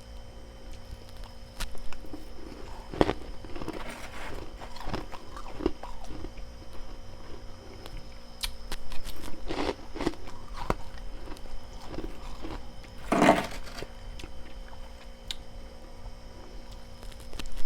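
A person biting and chewing frost ice, with irregular crisp crunches and a louder crunch about two-thirds of the way through.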